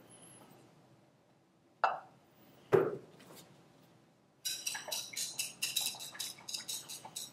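Two single knocks, then a thin metal spatula clinking rapidly against the inside of a glass beaker while boric acid powder is stirred into water, starting a little past halfway.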